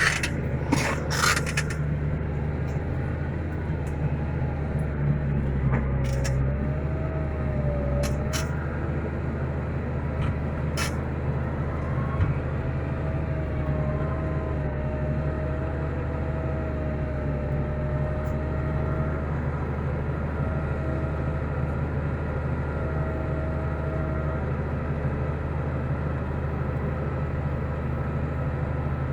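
Tractor diesel engine running steadily under load, with a few sharp clicks and knocks in the first couple of seconds. A thin wavering whine rides over it from about six seconds in until near the end.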